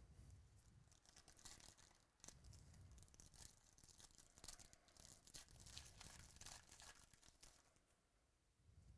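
Faint crinkling and tearing of a foil trading-card pack wrapper being ripped open by hand, a 2017 Chronicles Baseball pack. The crackle runs for several seconds and dies down near the end.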